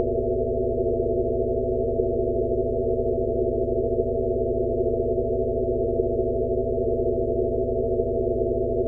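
Synthesized 'Rife frequency' sound-therapy track for tinnitus relief: several steady pure tones layered over a low hum, all held at an even level with no change.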